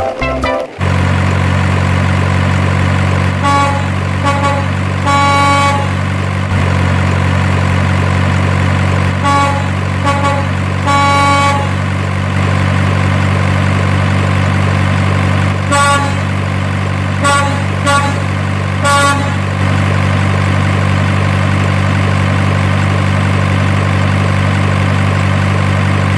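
Truck sound effect: a steady diesel-style engine drone starting about a second in, overlaid with groups of short horn toots, three near the start, three a few seconds later and four more past the middle.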